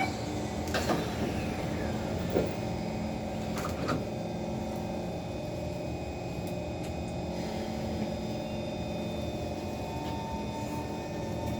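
The doors of an SMRT Kawasaki C151 train shut with a thud about a second in, followed by a couple of clunks over a steady cabin hum. Near the end the traction motors start a rising whine as the train begins to pull away.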